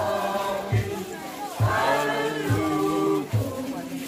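A crowd of children and adults singing a hymn together while walking, with a low drum beat keeping time about once a second.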